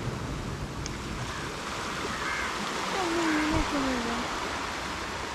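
Sea surf washing steadily on the beach. About three seconds in, a person's voice briefly hums or calls out in a wavering tone that drops at the end.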